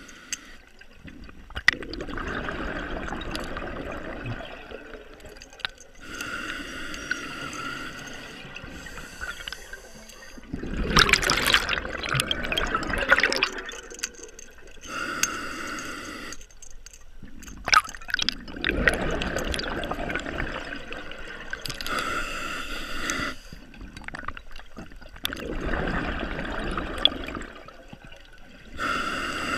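Scuba diver breathing underwater through a regulator. Each slow breath is a hissing inhale followed by a loud gush of exhaled bubbles, repeating roughly every seven to eight seconds, with a few sharp clicks in between.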